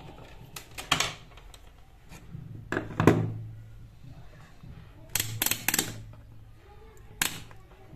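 A few clusters of sharp plastic clicks and light knocks: a digital multimeter's rotary selector dial being turned and the meter handled while it is set to continuity buzzer mode.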